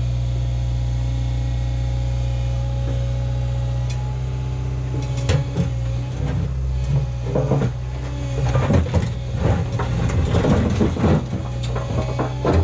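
JCB JZ140 tracked excavator's diesel engine running steadily, and from about five seconds in its bucket scraping over rock and stones, with irregular clunks and scrapes.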